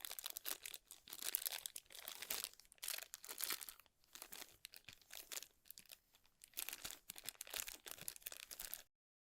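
Packaging crinkling and rustling as it is handled, in irregular bursts, cutting off suddenly near the end.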